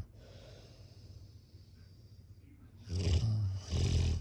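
A sleeper snoring: after a quiet stretch, two loud rasping snores come in quick succession about three seconds in.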